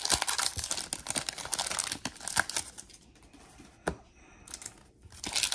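Trading-card pack wrappers being torn open and crinkled. The crackling is dense for about three seconds, drops to a quieter stretch broken by a single click, and picks up again near the end.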